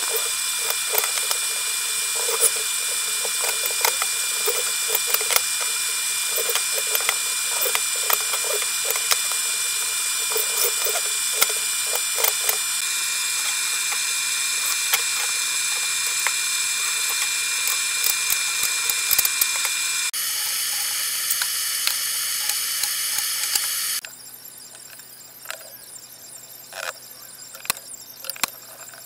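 A workshop machine's motor running steadily with a high whine and hiss, under scattered knocks and clicks of plywood parts being handled. The machine noise stops about 24 seconds in, leaving only quieter handling clicks.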